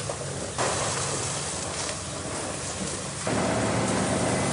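Steady rushing noise of a burning building under fire hoses. About three seconds in it switches abruptly to a louder, steadier noise with a low motor hum running under it.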